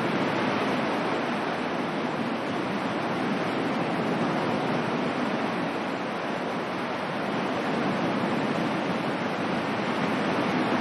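Ocean surf as a sleep-aid background track: a steady, even wash of waves with no distinct breaks or surges.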